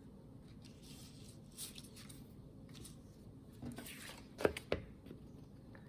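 Faint rustling of paper cut-outs being handled and slid into place, with one sharp tap a little over four seconds in.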